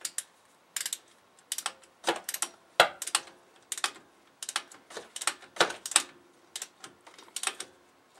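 Click-type torque wrench ratcheting on a brake caliper bolt as it is tightened to 20 foot-pounds: irregular sharp clicks, about two or three a second.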